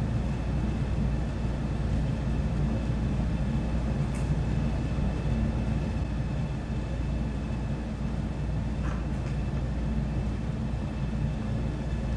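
A steady low rumble with a faint high whine, from background machinery or ventilation, with two faint ticks.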